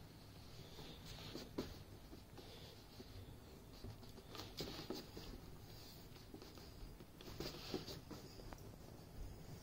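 Faint rubbing and a few light clicks of fingers pressing and smoothing electrical tape onto the rim of a bodhrán.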